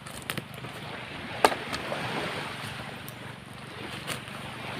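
Steady rushing of wind, with a few sharp clicks or snaps, the loudest about a second and a half in.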